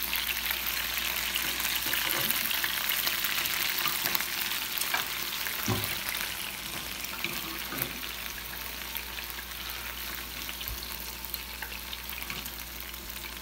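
Diced chicken sizzling in hot oil in a skillet, with a few light clicks of a fork turning the pieces against the pan. The sizzle eases a little in the second half.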